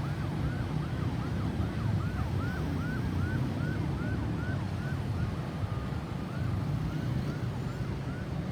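Ambulance siren on a fast yelp, about three quick rising-and-falling sweeps a second. About two-thirds of the way through it holds a steady tone for a moment, then yelps again more faintly. A low road rumble runs underneath.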